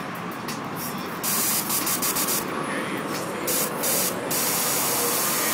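Nitrous Express purge on an Infiniti G37S venting nitrous oxide: several short, loud hissing blasts starting about a second in, ending in a longer blast. Purging clears gas from the feed line so liquid nitrous sits ready at the solenoid.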